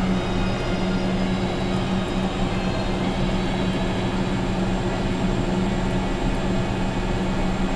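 Caterpillar D8T dozer's diesel engine running steadily, a constant drone with a strong held tone.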